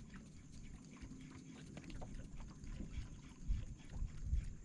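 Quiet outdoor background: an uneven low rumble, like light wind on the microphone, with scattered faint ticks and a soft bump about three and a half seconds in.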